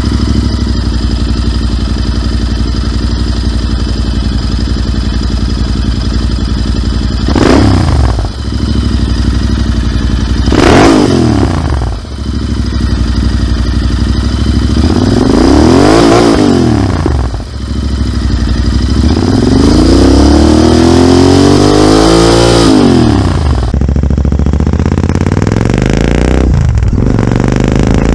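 Royal Enfield 650 parallel-twin engine running through aftermarket AEW slip-on silencers with the dB killers removed: idling steadily, then blipped twice, revved longer and held up at revs for several seconds. Near the end it is heard on the move, being ridden.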